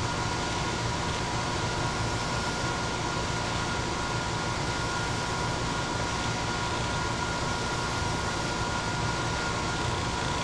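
Fan running steadily: an even whooshing noise with a low hum underneath and a couple of steady whining tones, unchanging throughout.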